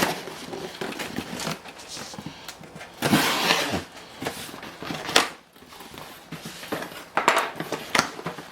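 Unpacking a cardboard shipping box by hand: packaging rustling and scraping, with items knocking as they are lifted out. There is a longer stretch of rustling about three seconds in and a sharp knock about five seconds in.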